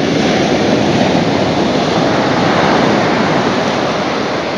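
Ocean surf breaking and washing up a sandy beach: a loud, steady rush that swells and eases slightly near the end.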